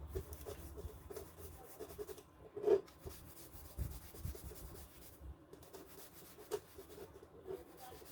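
Light rubbing and scratching with many small ticks, and one louder knock about two and a half seconds in.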